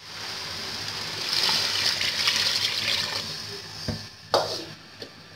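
Water being poured into a cooking pot of raw beef pieces and whole spices to make a meat stock, a steady splashing pour that grows louder about a second in and fades out after about three and a half seconds. Two short knocks follow near the end.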